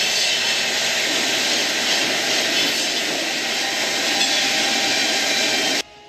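Sawmill trimmer line running: circular saw blades and a board conveyor making a loud, even industrial din that cuts off suddenly near the end.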